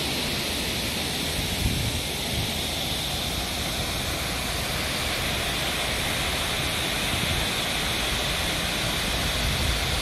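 Steady rushing of a waterfall cascading down a rock face.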